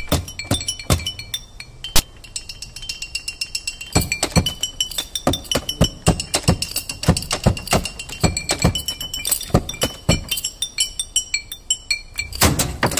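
Music of rapid, irregular clinking percussion strikes with ringing high tones, thickening after a few seconds into a busier rattle.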